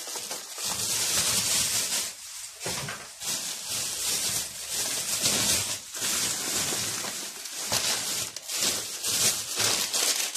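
Thin plastic carrier bags rustling and crinkling in irregular flurries as hands rummage through them.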